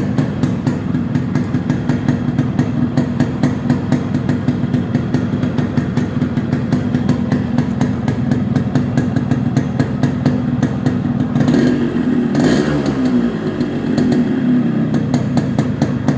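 Yamaha RX-S single-cylinder two-stroke motorcycle engine idling with an even, rapid pulse just after starting, with a brief rev that rises and falls about twelve seconds in.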